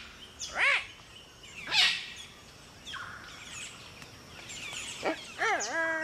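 Loud whistled calls of the palm cockatoo kind, rising then falling in pitch, heard three times: about half a second in, near two seconds, and near the end. Smaller birds chirp high in the background.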